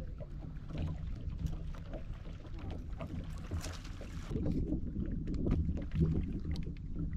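Low, uneven rumble of a fishing boat on the water, with wind on the microphone and a few light clicks; the rumble grows a little louder about halfway through.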